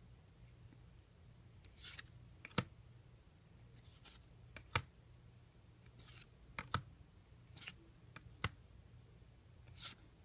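Trading cards being handled and slid one over another: soft swishes and sharp snaps or taps, about eight of them at irregular intervals.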